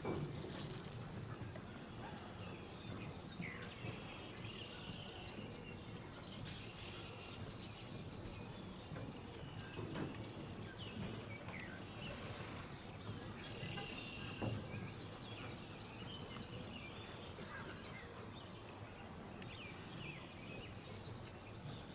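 Open-air ambience: a steady low background noise with scattered faint short chirps, and a couple of soft knocks about ten and fourteen seconds in.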